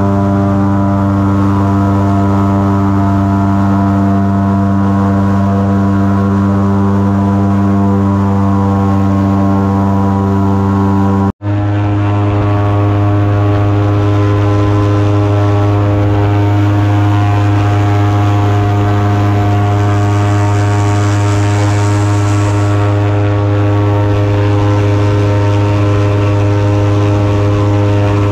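Airboat's engine and aircraft-type propeller running steadily at cruising speed, a loud, even drone. It breaks off for an instant about eleven seconds in and resumes unchanged.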